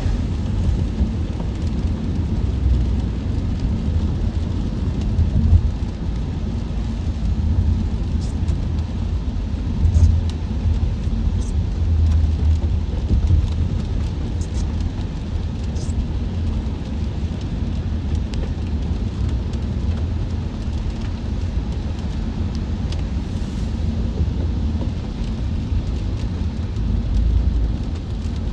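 Steady low road rumble of a car at freeway speed on wet pavement, heard inside the cabin through a phone's built-in microphone, with a few faint ticks in the middle.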